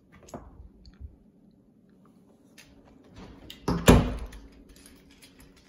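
A wooden interior door, the pantry door, shut with a loud thud about four seconds in, after a few light knocks and handling noises.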